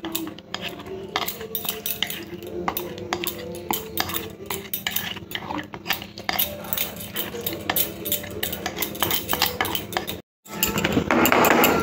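Wire whisk scraping and clinking against the mixing bowl and metal cake tin as thick cake batter is scraped out into the tin, many quick clinks and scrapes. After a brief break near the end, the scraping comes thicker and faster.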